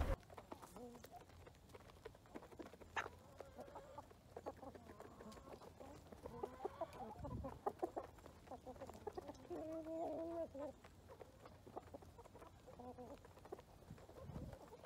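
Chickens clucking softly, with a longer, clearer call about ten seconds in.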